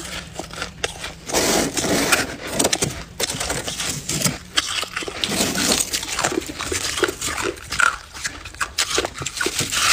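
Freezer frost being chewed and crunched in the mouth close to the microphone: dense, irregular crackling crunches.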